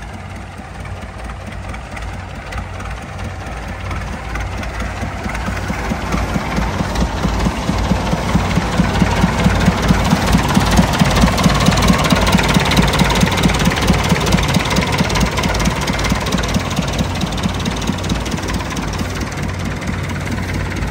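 Massey Ferguson 185 tractor's Perkins four-cylinder diesel idling with a steady rapid diesel knock. It grows louder over the first half, then eases slightly.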